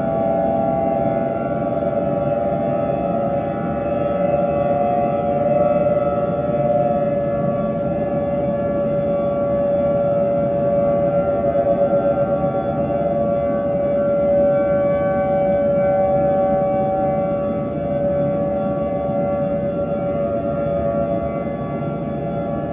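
Outdoor warning siren sounding a steady tone: its pitch is held level, with a slight waver and no rise or fall.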